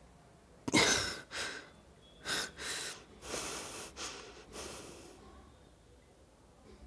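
A person's heavy breathing: about half a dozen sharp, noisy breaths, the first the loudest, growing weaker until they die away about five seconds in.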